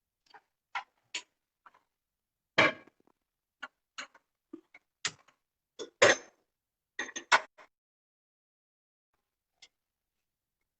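Kitchen utensils and containers being handled: a series of irregular clicks and knocks, the loudest about two and a half and six seconds in.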